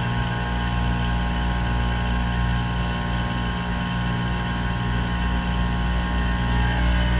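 Trane Odyssey heat pump running during a defrost cycle: a steady hum with several steady tones. Near the end the sound shifts and grows slightly louder.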